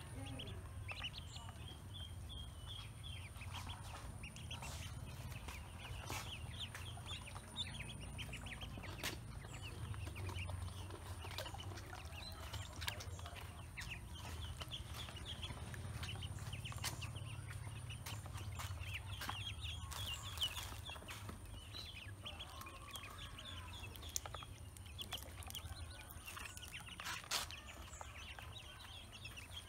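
Ducklings and young chicks peeping in quick, continuous runs of short high calls, with a few sharp ticks now and then over a low steady rumble.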